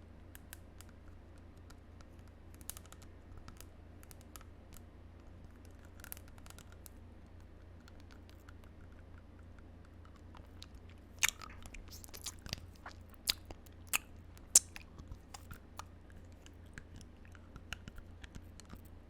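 Teeth biting and chewing on an object held close to the microphone, in scattered crunchy clicks. A louder run of bites comes a little past the middle.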